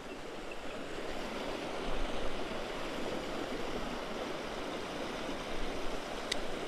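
Creek water rushing steadily over a small waterfall and rocks, a little louder after the first second or two.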